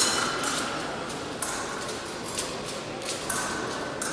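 Sharp clicks and knocks of an épée bout in a large hall, several of them, the loudest right at the start with a short ring, over a steady hall hum; a faint high tone sounds during the first second and again near the end.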